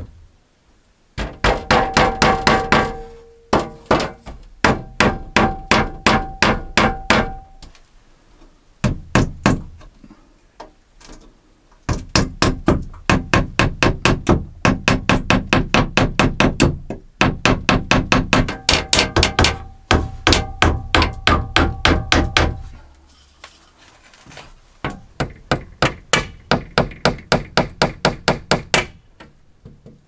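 Hammer blows on the cabin's wooden window frame, in quick runs of about four strikes a second with pauses between the runs; some blows ring.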